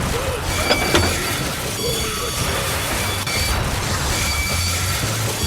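Dubbed cartoon train sound effects: mechanical clanking and rattling, with a couple of sharp clicks about a second in, over background music.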